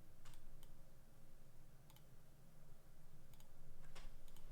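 A few scattered sharp clicks from someone working at a computer, over a low steady room hum.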